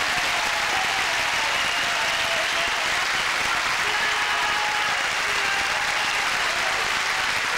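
Studio audience applauding steadily, with voices calling out and laughing over the clapping.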